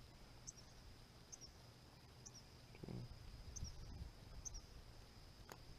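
Faint insect chorus: a steady high trill with a short high chirp repeating about once a second. A single sharp click sounds near the end.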